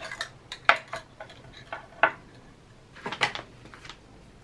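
Measuring cups, metal measuring spoons and small bottles being handled and set down on a glass desk top: a handful of separate sharp clicks and clinks.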